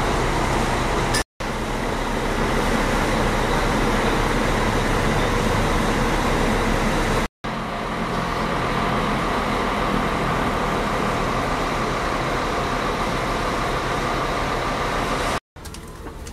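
Scania diesel engine of a Marcopolo Paradiso 1800 DD double-decker coach running steadily, heard close by. The sound drops out briefly three times at cuts, and the last moment is quieter.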